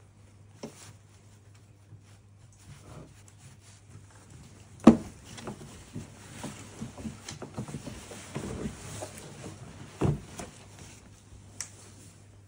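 Handling noise as a non-woven fabric dust bag is pulled off a hard-shell suitcase: soft rustling and scuffing, with two dull thumps about five and ten seconds in as the case is shifted in its cardboard box.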